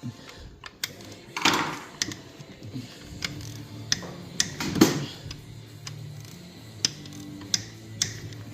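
Hand tools clicking and clinking on metal as the Polaris Ultra's two-stroke engine is being taken apart and the cylinder heads come off. The clicks are irregular, with two louder clunks about one and a half seconds and about five seconds in.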